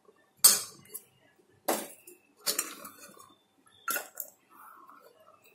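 Metal spoon clinking and scraping against an aluminium pressure-cooker pan and a steel cup while boiled chickpeas are spooned out. The clinks come in a series about a second apart.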